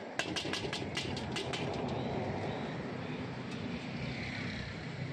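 Metal spatula clanking and scraping against a large steel wok during stir-frying: a quick run of strikes in the first two seconds, then a steady sizzle over the steady noise of the gas burner.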